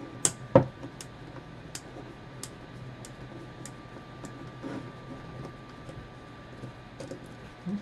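Light clicks, about one every half second, the first two the loudest, as a T8 Torx precision screwdriver turns screws out of a plastic actuator housing. A fan hums steadily underneath.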